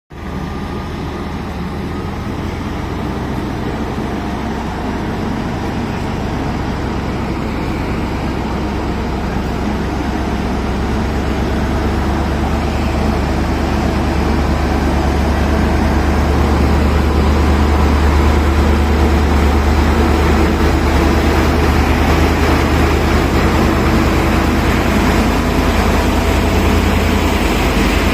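Heavy engine of a large crane running steadily with a deep drone, getting gradually louder over the first eighteen seconds or so and then holding.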